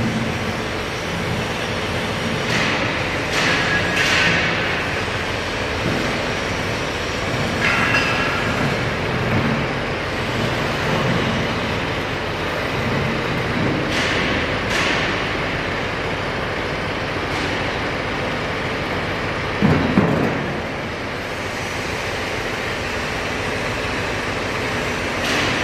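Tractor diesel engine running as the tractor drives and turns on a concrete floor, with a few brief squeals early on and a louder knock about twenty seconds in.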